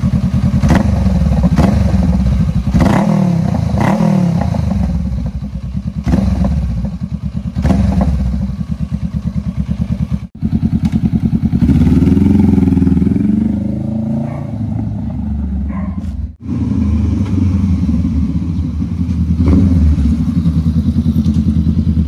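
Honda Rebel 500 parallel-twin engine through custom Orion straight-pipe slip-on exhausts, idling with short, loud throttle blips. After a cut about ten seconds in, the engine note rises and falls as the bike moves off. After another cut it runs steadily, with one more blip near the end.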